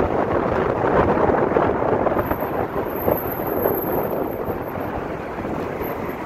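Wind and road noise rushing in through an open car window while driving: a steady rush that eases slightly toward the end.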